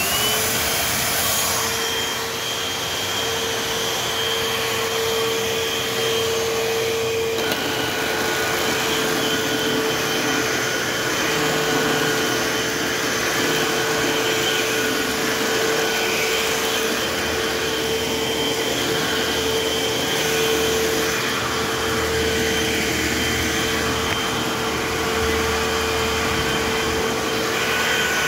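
Eureka AirSpeed AS1101 multi-cyclonic upright vacuum cleaner switched on, its motor spinning up with a rising whine in the first moment. It then runs steadily with a constant whine over its airflow noise.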